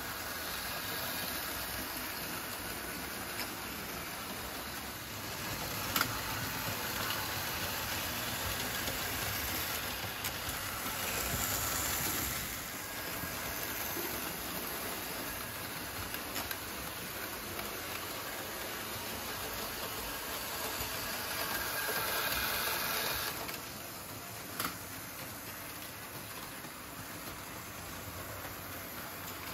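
Märklin HO model trains running on the layout: a steady rolling hiss of wheels and motor, swelling twice as a train passes close, with two short sharp clicks.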